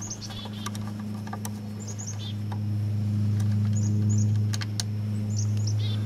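Short, high, falling bird chirps in small groups every second or two over a steady low hum. A few light clicks come from a screwdriver backing out the Phillips screw that holds the speedometer cable at the front wheel hub.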